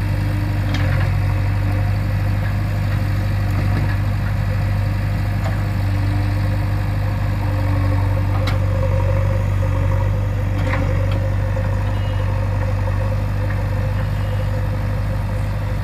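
JCB 3DX backhoe loader's diesel engine running steadily at an even, low pitch, with a couple of faint knocks about halfway through.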